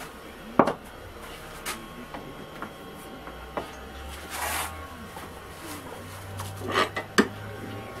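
Scattered knocks and clicks of metal lathe parts and tools being handled, the sharpest two close together near the end, with a short rustle midway over a faint low hum.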